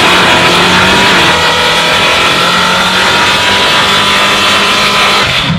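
A car engine running loud and held at high revs, steady throughout, cutting off abruptly near the end.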